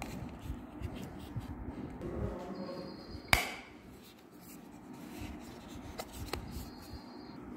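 Handling noise from a Nokia T3110 earbud charging case: rubbing and a few small clicks, with one sharp click a little under halfway through that is the loudest sound. A faint high steady tone sounds briefly twice.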